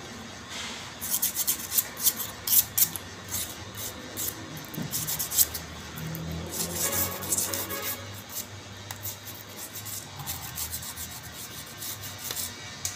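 Rapid, irregular scraping and rubbing by hand inside the steel field housing of a forklift starter motor as it is cleaned out. The strokes come thick and fast for most of the first eight seconds, then thin out.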